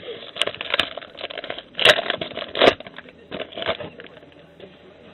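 Trading card pack wrapper crinkled and crackled by hand, with two sharp, louder crackles about two and nearly three seconds in.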